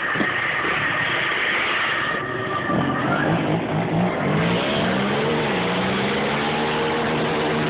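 Two ATV engines racing, revving up and dropping back again and again as the quads shift through the gears; the engine notes come in clearly about three seconds in, with a high steady whine before that.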